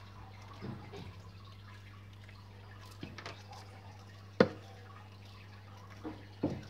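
Bearded dragons biting and chewing a lettuce leaf: a few short, crisp snaps spread out, the loudest about halfway through, over a steady low hum.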